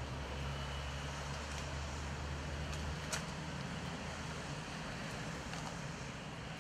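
Steady noise of freeway traffic and idling vehicle engines, with a low hum underneath and a sharp click about three seconds in.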